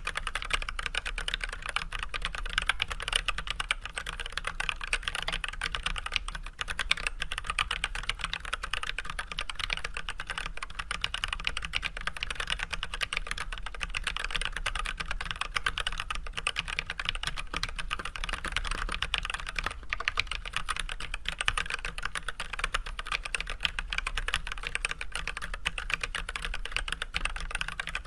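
Continuous typing on an Archon AK87 hot-swap mechanical keyboard fitted with unlubed Everglide Red 67g linear switches with switch films and Leopold white PBT keycaps: a dense, steady stream of keystrokes at a normal typing pace.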